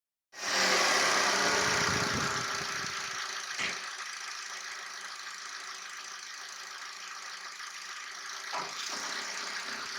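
Citroën C3 Aircross 1.6 engine idling with the bonnet open, louder for the first seconds and then steady, with two short knocks about five seconds apart. The engine and gearbox mounts are worn, letting the engine rock when the gearbox is put in drive or reverse.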